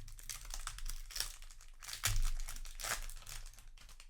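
Foil Magic: The Gathering set booster pack wrapper crinkling as it is handled, loudest about two seconds in.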